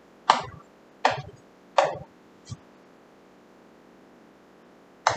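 Four short, sharp taps about three-quarters of a second apart, each dying away quickly, the last one faint.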